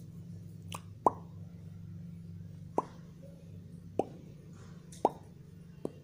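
Five short kissing smacks, each a quick downward-sweeping pop, spaced about a second apart, made between a person's lips and a pet green parrot's beak. A steady low hum runs underneath.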